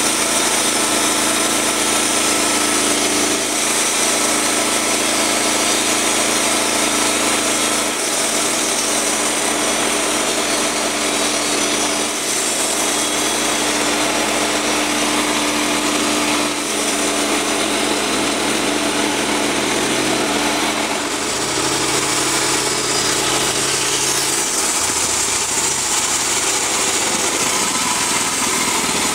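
Portable bandsaw mill's Honda gas engine running under load as the band blade saws through a black cherry cant, a steady engine and cutting sound; the engine note shifts for a few seconds near the end.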